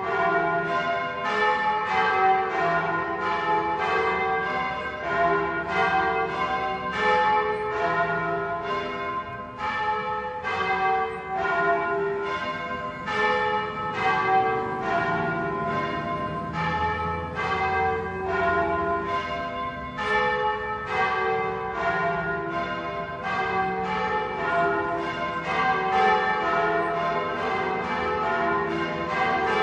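Church bells rung in the Bolognese style (campane alla bolognese): several bronze bells of different pitches struck in a quick, continuous sequence, each stroke ringing on under the next.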